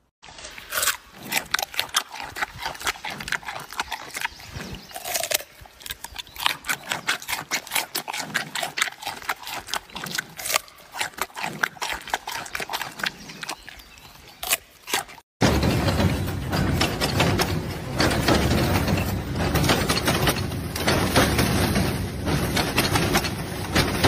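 A giant panda crunching a raw carrot: irregular sharp crunches, a few a second. About fifteen seconds in it cuts abruptly to a louder, dense, continuous noise.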